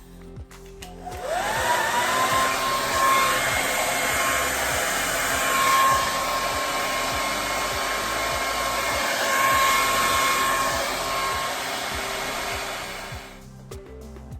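Handheld hair dryer switched on about a second in: the motor whine rises to a steady pitch over a loud rush of air, then it is switched off near the end.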